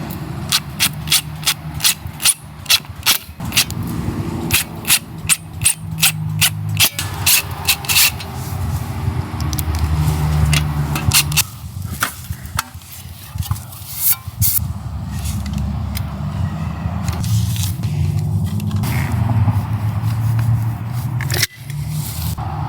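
A quick run of sharp clicks or taps, about three a second, for the first eight seconds. Scattered scrapes and rattles follow, all over a steady low hum.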